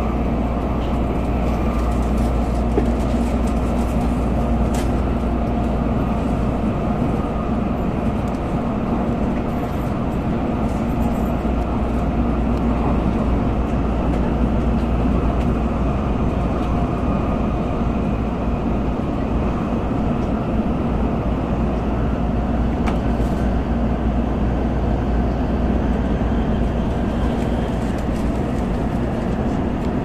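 Cabin noise of a Tokaido Shinkansen N700A bullet train running along the line: a steady low rumble with a faint hum over it, unchanging throughout.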